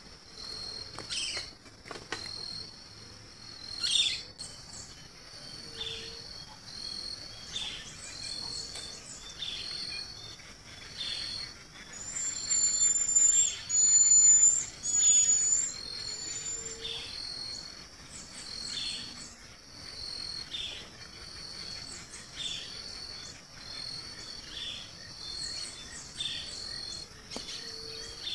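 Night-time-style chorus of insects trilling steadily, with a call that repeats about every second and a bit throughout. Between about 12 and 16 seconds in a bird gives three loud, short, high whistled notes. A couple of sharp knocks come in the first few seconds.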